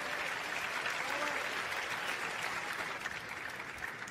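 Arena crowd applauding after a point, the clapping thinning out near the end.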